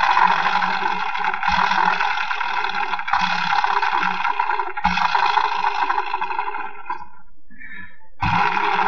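A hand-spun permanent-magnet motor's rotor and stator magnets whirring with a rough buzz. Each fresh spin kicks it back in sharply, about one and a half, three and five seconds in. It dies away about seven seconds in and starts again near the end: repeated tries at getting a stator magnet to synchronize with the rotor.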